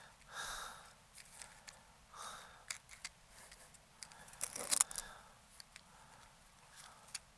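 Small clicks, taps and brief rustles of equipment being handled, with a quick cluster of sharp clicks about four and a half seconds in.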